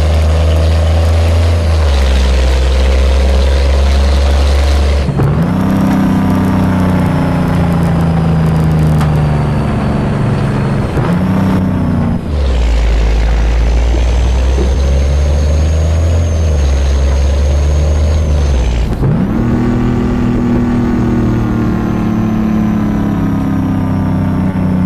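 Scania truck engine running loud under load, working up through the gears: the engine note breaks off and picks up again about five seconds in, around eleven to twelve seconds, and near nineteen seconds, sagging slowly in pitch as it pulls between changes. A faint high whistle runs above it.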